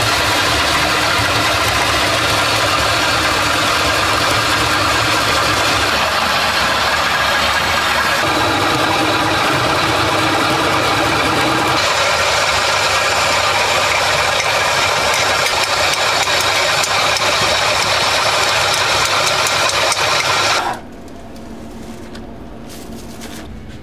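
Electric potato-grating machine running loud and steady as it grinds peeled potatoes into pulp for potato pancakes, with a rattling mechanical noise. It stops abruptly near the end, leaving a much quieter background.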